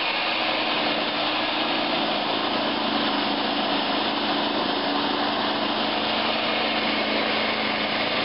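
Light-duty electric single-stage snowblower running steadily, its plastic auger churning snow and throwing it out the chute.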